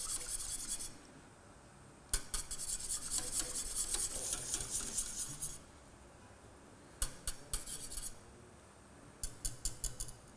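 Wire whisk rapidly scraping and clinking against the inside of a stainless steel saucepan as a milk-and-cream mixture is stirred while it heats toward the boil. It comes in four bouts with short pauses between them.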